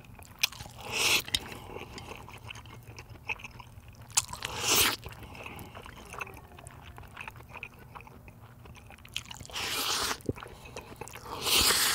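A person slurping noodles off chopsticks, four loud slurps (about a second in, around four seconds, near ten seconds and at the end), with chewing and small wet mouth clicks between them.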